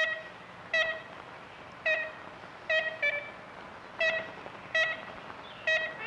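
Ivory-billed woodpecker giving its short, nasal, toy-trumpet-like 'kent' calls, eight in all, about one every three-quarters of a second, in an old film recording.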